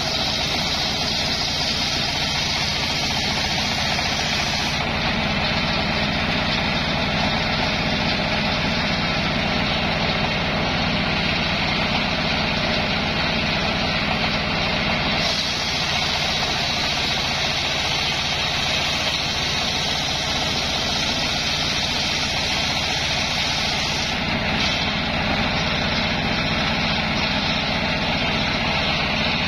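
Stationary single-cylinder diesel engine running steadily under load, driving a homemade circular saw that rips lengthwise through a coconut-palm log, with a continuous sawing hiss over the engine note.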